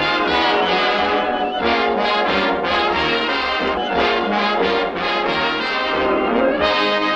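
Brassy orchestral cartoon score, with trombones and trumpets to the fore, playing a lively line of short, quickly changing notes.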